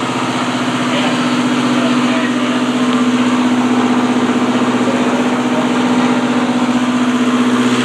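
Machinery aboard a flooding boat running steadily with an even hum that starts abruptly at the outset.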